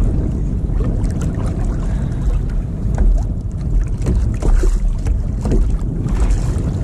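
Wind rumbling on the microphone over water lapping at a plastic kayak hull, with scattered small splashes and knocks.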